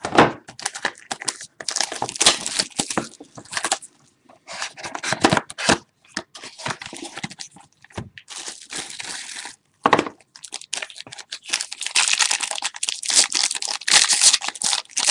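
A trading card box's packaging being torn open and the wrapper crinkled by hand, in irregular rips and rustles with short pauses.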